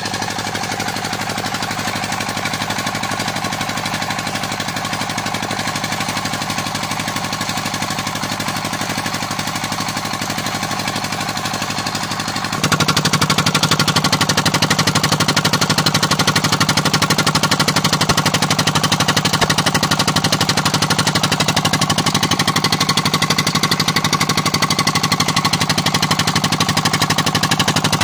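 25 HP stationary diesel engine running steadily under load, driving a tubewell water pump through a flat belt, with a fast even chugging beat. It gets louder about halfway through.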